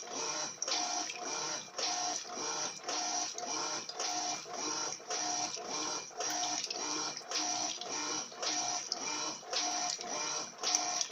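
Electrolux LF80 top-load washing machine agitating a load of sheets on its Turbo wash, the motor whining and the agitator reversing in a steady rhythm of about one and a half strokes a second.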